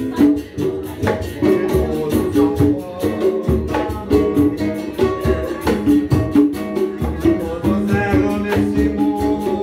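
Live band music: guitars playing over hand percussion that keeps a steady, quick beat.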